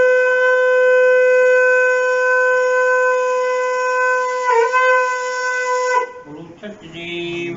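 Conch shell (shankh) blown in one long, loud, steady note. It wavers briefly about four and a half seconds in and stops about six seconds in.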